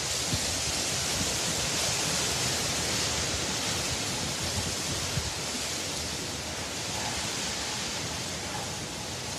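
Hurricane-force wind and driving rain: a steady, hissing rush of noise with no breaks.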